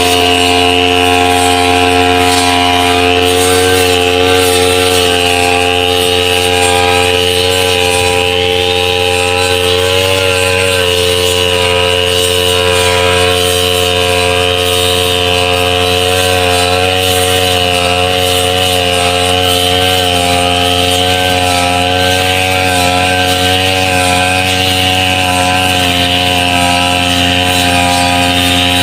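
Brush cutter's small engine running steadily at a constant speed, its pitch wavering slightly now and then.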